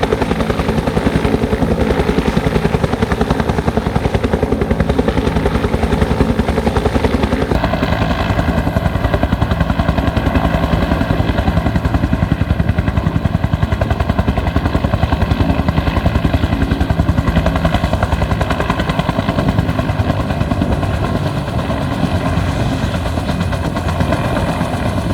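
Bell 205 helicopter running, its main rotor beating rapidly and evenly over the noise of its turbine. About seven and a half seconds in, the tone changes abruptly and a set of steady, higher whining tones comes in.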